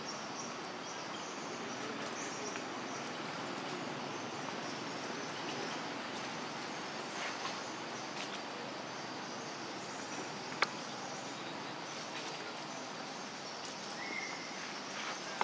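Steady outdoor forest ambience: an even background hiss with faint high chirps, a single sharp click about ten and a half seconds in, and a short high squeak near the end.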